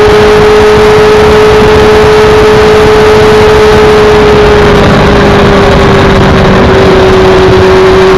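Motorcycle engine holding a steady cruise, one constant drone that drops slightly in pitch about halfway through as the rider eases off. It sits under loud wind rush and road noise on the rider's helmet-mounted camera microphone.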